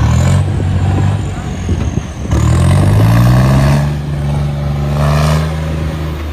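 John Deere tractor's diesel engine revving hard under load as it drives through shallow river water, with water splashing; the revs climb about two seconds in and then hold high.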